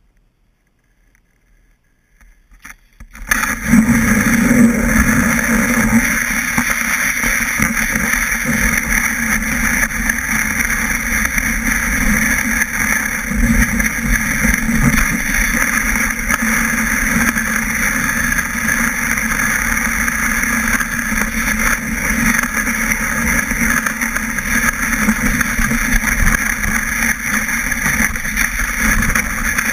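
Snowboard sliding over packed snow, heard through a camera mounted on the board: a loud steady rushing scrape that starts suddenly about three seconds in after near silence.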